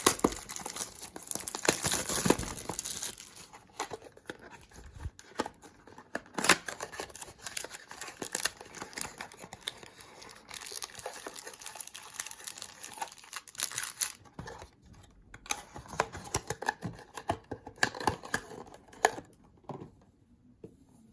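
Packaging being torn and crinkled as a mini box of baseball trading cards is opened by hand, with irregular crackles and scrapes that go quieter near the end.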